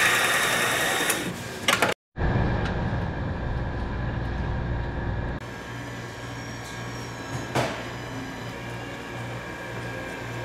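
An electric daikon shredder whirs as it cuts a radish into fine strands, loudest in the first second or so. After a sudden break comes a lower mechanical rumble, then a steady background hum with a single sharp knock about seven and a half seconds in.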